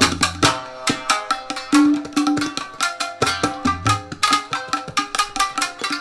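Shamisen and tabla playing together in a free improvisation: plucked shamisen notes over quick tabla strokes, with the small drum's ringing pitched notes and the deep bass drum's booming notes. The bass drops out about half a second in and returns near the middle.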